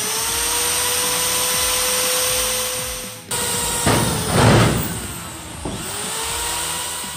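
Cordless drill drilling into aluminium sheet on a boat hull. The motor spins up to a steady whine and stops about three seconds in. A loud rough grinding follows around four seconds in as the bit bites through the metal, then the motor spins up and whines again.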